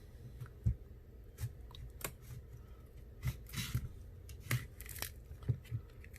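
A pry tool working around the edge of an iPhone 6s Plus display to open it: scattered clicks and taps with a couple of short scrapes.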